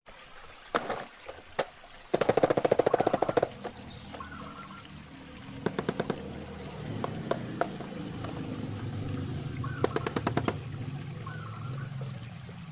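Running water under bursts of rapid clicking and rattling from a toy truck being unboxed and handled: a long burst about two seconds in, shorter ones later.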